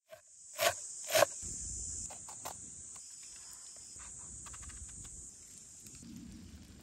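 Woodland ambience with a steady high-pitched insect drone. Two loud, sharp sounds come about half a second apart near the start, followed by a few fainter clicks.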